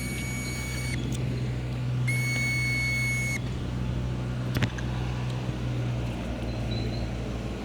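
Sunscreen container squeaking twice as it is worked, each a steady high squeal about a second long, then a single click. A steady low hum runs underneath.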